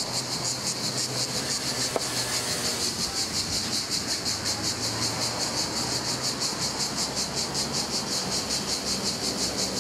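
A dense insect chorus chirring high and steady, in a fast regular pulse, over a faint low steady hum.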